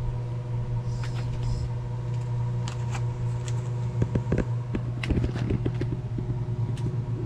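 A steady low mechanical hum, with light clicks and knocks of plastic food tubs being set into a plastic basket, more of them from about four seconds in.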